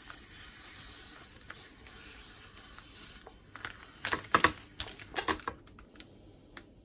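Plastic freezer bag full of sour cherries crinkling in several short crackly bursts about halfway through, as a hand presses and smooths it flat on a wooden cutting board.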